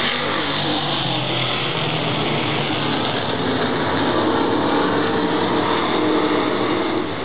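Several race car engines running at speed as a pack of cars circles the oval. The sound is a loud, continuous drone that swells a little past the middle.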